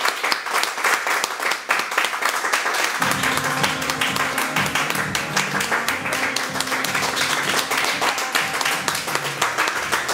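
Audience clapping, with music starting about three seconds in.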